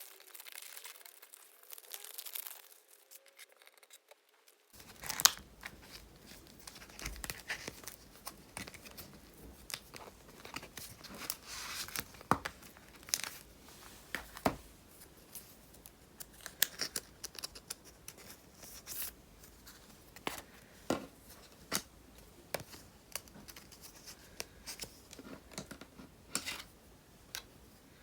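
Plastic card sleeves and craft decorations being handled at close range: irregular crinkling and tearing or peeling sounds, broken by scattered sharp clicks and taps.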